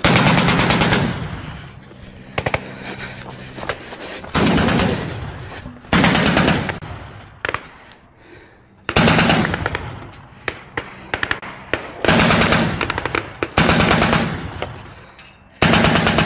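Heavy machine gun mounted on a pickup truck firing about eight bursts of rapid automatic fire, each burst lasting around a second, with short pauses between them.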